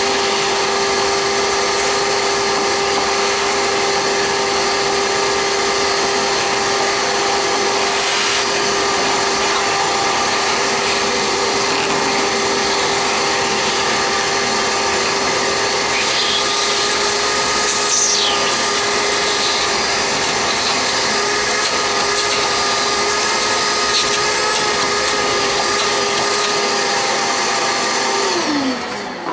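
Vacuum cleaner running steadily with a high whine, its crevice nozzle sucking up sawdust from a wooden tabletop. Near the end it is switched off and winds down, the whine falling in pitch.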